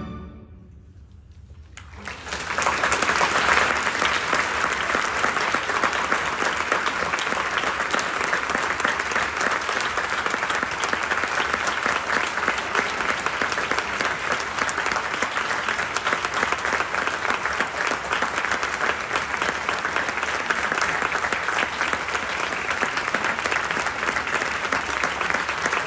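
An orchestra's final chord dies away, and about two seconds in a large audience starts applauding, steady clapping that keeps going.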